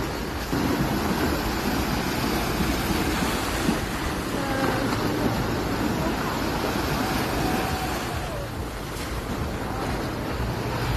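Small waves washing onto a sandy beach in a steady wash of surf, with wind rumbling on the microphone.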